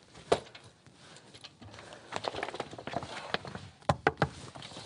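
Footsteps creeping on stairs and a hard floor: irregular soft thuds and sharp taps, the loudest about a third of a second in and again near four seconds.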